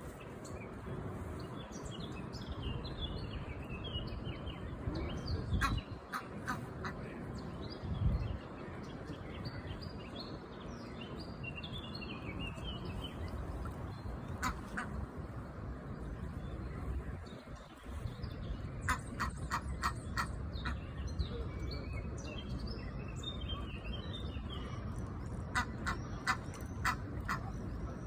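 Ducks quacking in several runs of short, quick calls, with small birds chirping and twittering in the background.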